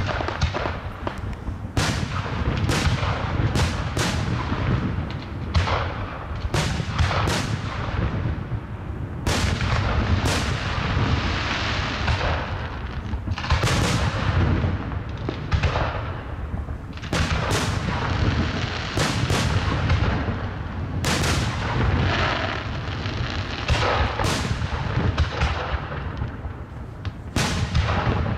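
Aerial fireworks display: a rapid series of shell bursts, several bangs a second at the busiest moments, over a continuous rumble of echoing booms and crackle.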